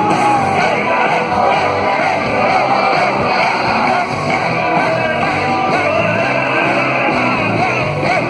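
Rock band playing live: electric guitars and drums under a wavering high melody line, loud and steady.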